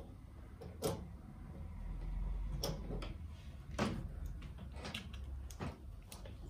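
Irregular knocks and clicks of equipment being handled, about four louder ones among fainter taps, over a low steady hum.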